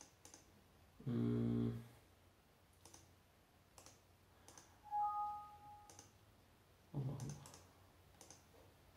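Computer mouse clicking, single clicks every second or so, with a short two-tone electronic beep from the laptop about five seconds in, the kind of warning chime Windows gives when a USB drive cannot be ejected because programs may be using it.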